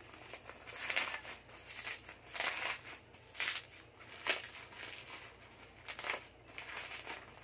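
Clear plastic bubble-wrap packaging crinkling and rustling in irregular bursts, about one a second, as it is pulled apart and unwrapped by hand.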